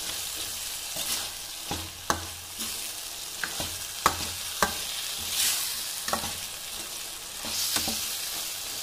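Metal ladle stirring chana dal and diced bottle gourd in a hot pan: a steady sizzle, with scrapes and a series of sharp clinks as the ladle strikes the pan.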